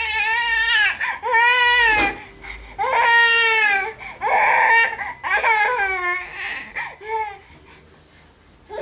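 Six-month-old baby crying in a run of loud, high wails, a hungry cry for milk. The wails grow shorter and die down near the end.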